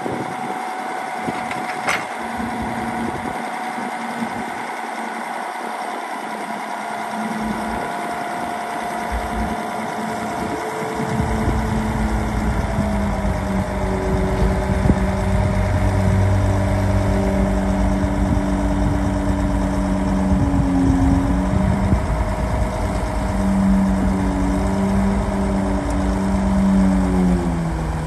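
Diesel engines of heavy earthmoving machines, a bulldozer and dump trucks, running steadily. The sound gets louder and deeper from about eleven seconds in, and the engine note steps down a little twice.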